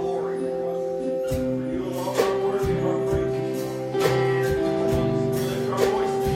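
Live church worship music: held chords with guitar, a steady drum beat and singing.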